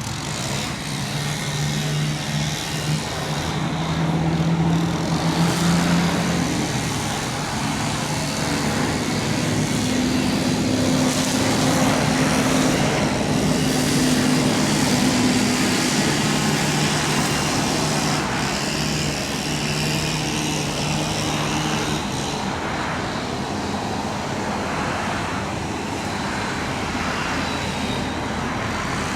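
Heavy diesel engine of a large demolition excavator running steadily, its pitch shifting up and down as it works, over a constant rumble of traffic-like noise.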